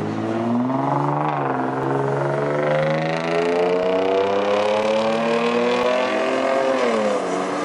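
A car engine revving up under hard acceleration. Its pitch climbs steadily for several seconds after a brief dip about a second in, then falls away near the end.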